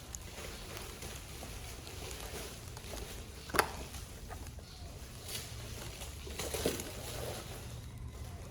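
Handling noises of a mechanical keyboard and its packaging being unboxed: one sharp click about three and a half seconds in, then a few softer knocks and rustles, over a low steady hum.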